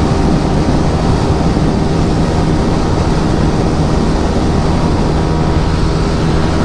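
Yamaha R15 V3's single-cylinder engine with an Akrapovic aftermarket exhaust, running steadily at highway cruising speed with no change in revs.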